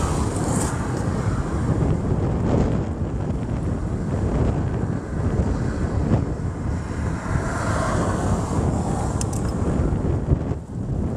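Strong wind buffeting the microphone: a steady low rumble and rush throughout.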